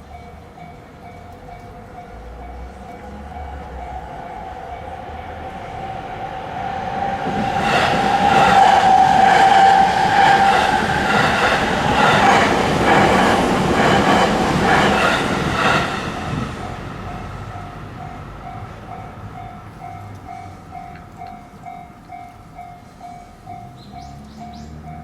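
A JR East E257 series electric limited express passes over a level crossing at speed, with a rhythmic clatter of wheels over rail joints, loudest about eight to ten seconds in and fading after about sixteen seconds. The crossing's warning bell rings in steady pulses throughout.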